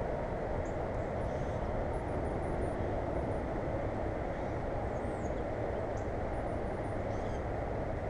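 A steady, dull rushing noise with no changes, and over it faint, short high-pitched bird chirps scattered throughout.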